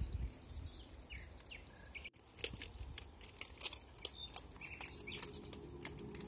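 Quiet outdoor woodland ambience with birds chirping here and there over a faint low rumble, dotted with many small clicks and crackles. The sound drops out for an instant about two seconds in.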